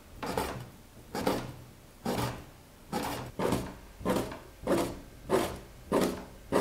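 Chinese cleaver chopping boiled pork skin into narrow strips on a wooden cutting board: a steady run of chops, about three every two seconds.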